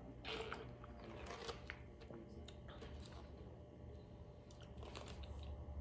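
A person chewing food close to the microphone: faint, scattered bites and crunches with small mouth clicks.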